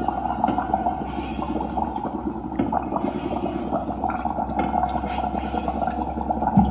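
Electric guitar through a small combo amp holding warbling, wavering notes, with a steady low hum underneath.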